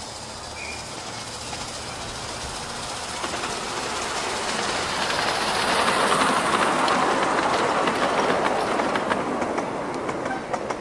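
Miniature ride-on train passing close by, its wheels running and clicking over the rail joints. It builds to its loudest about six seconds in as the carriages go past, then fades with a run of sharp clicks.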